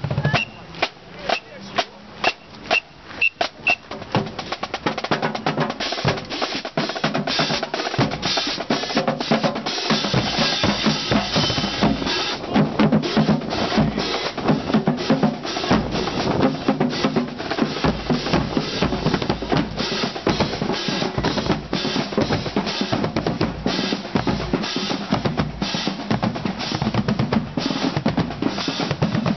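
Marching drumline of snare drums and marching bass drums playing: evenly spaced single strokes at about two a second, building after several seconds into a full, loud drum cadence.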